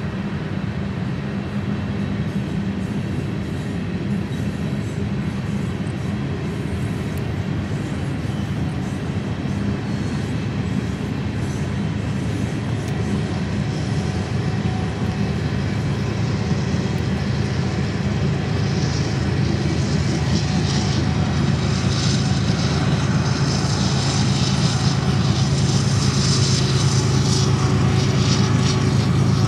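Steady low engine drone that grows louder throughout, from a crop-duster airplane spraying the field together with a CSX freight train rolling past. A higher hiss builds in the second half.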